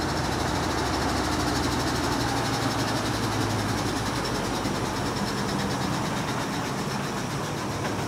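Diesel train running steadily, its engine note heard over the continuous rumble and hiss of the train on the track.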